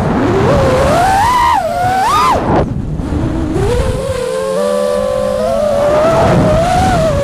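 FPV quadcopter's brushless motors whining, the pitch swinging up and down with the throttle. The whine drops away briefly a little under three seconds in, then holds a steadier pitch.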